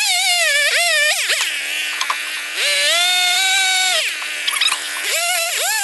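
Gas chainsaw revving up and down as it cuts into a wood carving. It drops back to idle twice and holds full throttle for about a second and a half in the middle, with quick throttle blips near the end.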